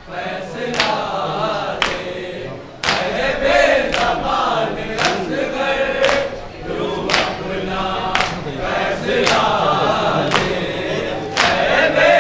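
A group of men chanting a Shia noha in chorus, with the mourners beating their chests in unison (matam) as a sharp slap about once a second. The chant grows louder about three seconds in.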